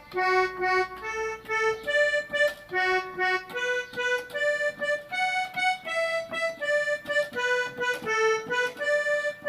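Electronic keyboard with an accordion voice playing a single-line melody one note at a time at an even, unhurried pace: the second part of a forró keyboard solo, played slowly for learning.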